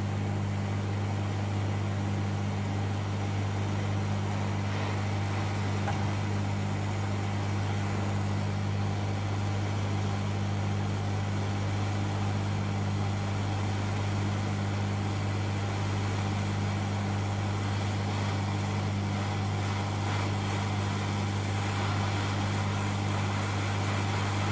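Hot air rework station blowing steadily while it heats a replacement MOSFET to reflow its solder: an even hiss over a steady low hum.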